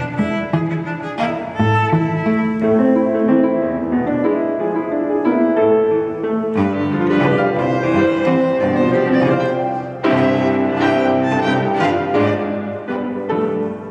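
Live piano trio of violin, cello and piano playing an arrangement of an Argentine dance, the bowed strings carrying the melody over the piano, with a brief break about ten seconds in.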